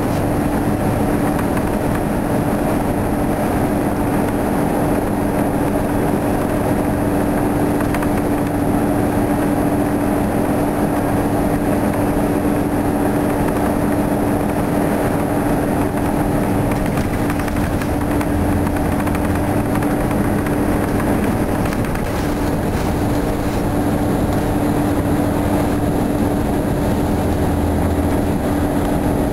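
Detroit Diesel 8V71 two-stroke V8 of a 1972 Flxible New Look transit bus running steadily while the bus drives along, heard from inside the bus. It makes a steady drone with road and body noise under it.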